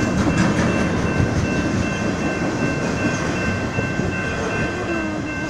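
BNSF manifest freight train's cars rolling past on the rails, a steady rattle and rumble with a faint high ringing tone held through it.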